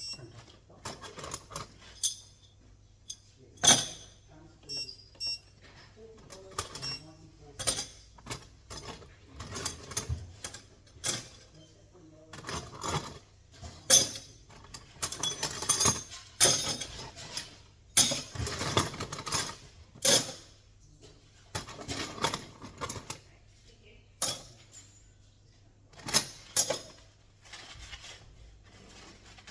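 Loose metal fasteners clinking and clattering as they are handled, a string of irregular sharp clicks and knocks with short pauses between.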